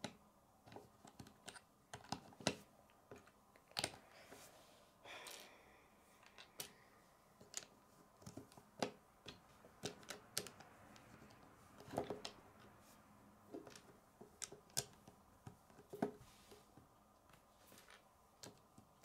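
LEGO bricks clicking and tapping as they are pressed together by hand: faint, irregular plastic clicks, a few a second.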